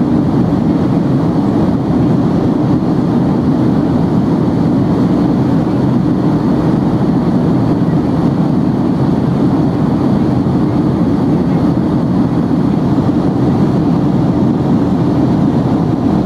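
Steady cabin noise of a Southwest Airlines Boeing 737 in flight, heard from a window seat by the wing: jet engines and rushing air blended into a loud, even low rumble that does not change.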